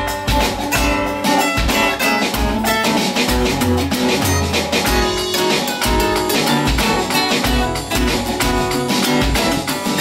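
Two acoustic guitars played together in an instrumental jam, with a drum kit keeping a steady beat of low kick-drum thumps.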